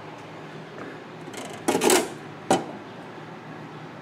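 The metal front cover of a solar disconnect enclosure being opened: a rattling scrape about two seconds in, then a sharp click, over a steady low hum.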